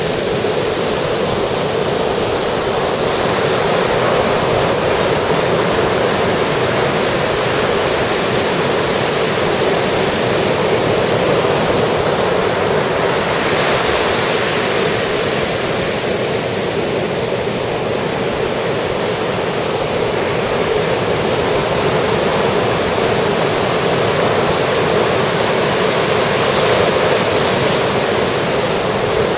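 Ocean surf breaking and washing up the beach in a steady, continuous wash, with gentle swells as waves come in.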